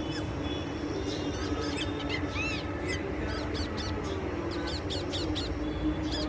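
Birds at a feeder calling in quick, short rising-and-falling notes, in clusters that thin out in the middle, over a steady low hum.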